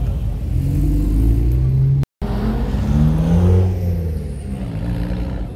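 A car engine revving as the car accelerates, its pitch rising twice and then falling away, with a brief cut in the sound about two seconds in.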